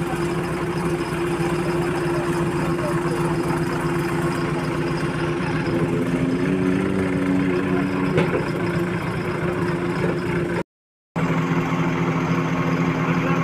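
JCB backhoe loader's diesel engine running steadily, its note rising and wavering for a couple of seconds about halfway through before settling back. The sound cuts out completely for a split second near the end.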